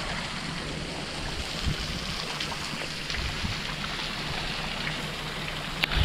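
Waterfall water pouring and splashing down from the cliff onto the road, a steady rush with scattered drips, over a low rumble. A few louder splashes near the end.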